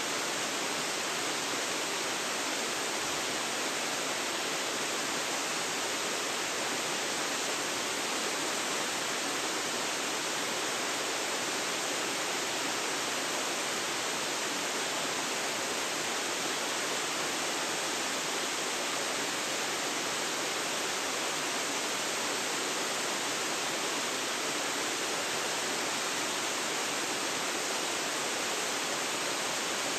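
Waterfall pouring steadily: an unbroken rush of falling water that stays even throughout, with no other sound standing out.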